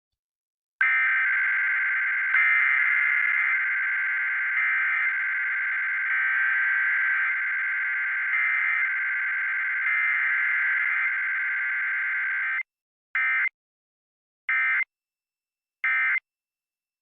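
Emergency Alert System test data tones: the harsh, buzzing digital squeal of the SAME code, continuous for about twelve seconds and cutting off abruptly, then three short bursts of the same tone about a second and a half apart, the end-of-message signal.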